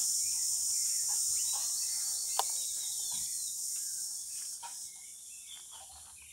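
Steady high-pitched drone of insects with faint bird chirps over it, and a couple of sharp clicks about two and a half and four and a half seconds in.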